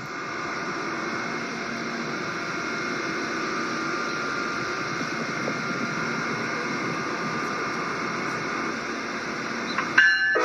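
A stopped train's steady hiss and electrical hum, like its ventilation running while it stands at the platform. A chime starts right at the end.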